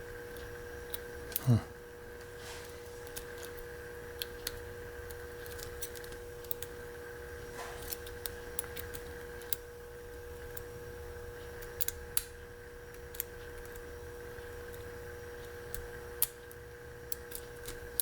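Scattered small metallic clicks and scrapes of a lock pick and tension wrench working the pins of a Hermex CH-50 padlock, single-pin picking under heavy tension; the picker concludes he has overset the pins. There is one louder knock with a falling tone about a second and a half in, over a steady electrical hum.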